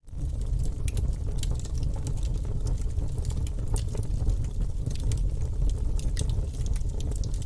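Wood fire burning in a fireplace, with frequent irregular sharp crackles and pops from the logs over a steady low rumble of the flames. The sound fades in quickly at the very start.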